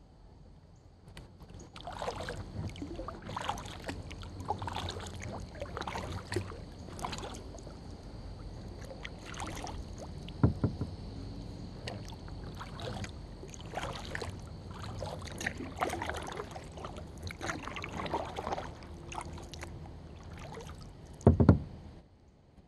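Kayak paddle strokes in calm river water: regular dips and pulls, about one every three-quarters of a second, starting about two seconds in. Two sharper knocks stand out, one midway and a louder one near the end.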